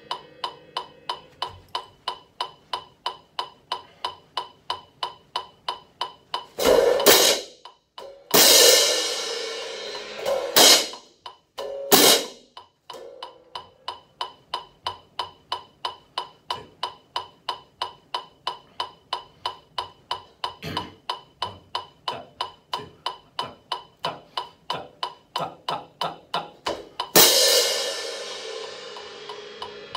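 Pair of Zildjian hand cymbals crashed five times: four crashes between about 7 and 13 seconds in, several of them cut off short, and one more near the end left to ring down. A steady click, like a metronome, ticks nearly three times a second underneath.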